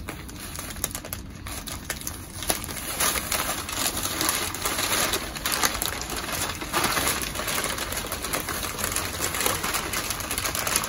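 Packing paper crinkling and rustling as a wrapped item is unwrapped by hand, louder from about two and a half seconds in.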